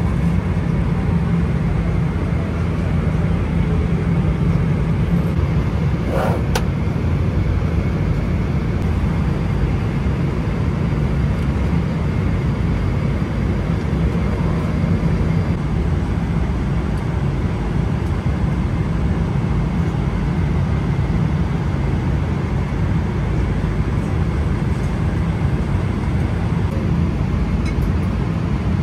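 Steady roar of a Boeing 777-300ER cabin in flight: engine and airflow noise, even and deep. A brief click comes about six seconds in.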